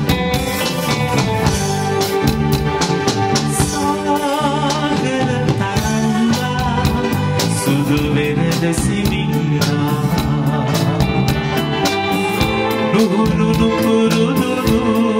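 Live band playing a Sinhala pop song: electric keyboards, electric bass, guitar and drum kit keeping a steady beat, with a man singing into a microphone.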